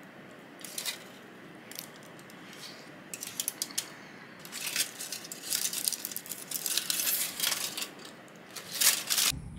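Aluminium foil wrapper of a chocolate bar crinkling as it is peeled back and then scrunched up by hand. The crackles are sparse at first, then grow busier and louder, loudest near the end.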